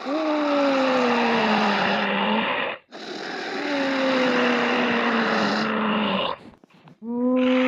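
Troll creature vocal sound effect: two long, rough calls, each about three seconds, sliding down in pitch, with a brief break between them. A steady horn-like tone begins near the end.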